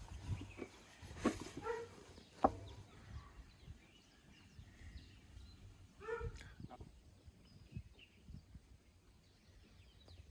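A few faint, short animal calls over light knocks and handling noise.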